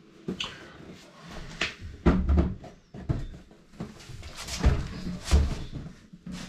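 Plastic frame of a PetSafe Smart Door dog flap being fitted into a hole cut through a composite door: a series of hollow knocks, thuds and scrapes as it is pushed and seated. The loudest thuds come about two seconds in and again about four and a half to five and a half seconds in.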